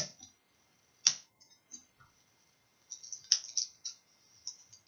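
Sticky tape and paper being handled: short crinkles and clicks, a few single ones and then a quick cluster about three seconds in.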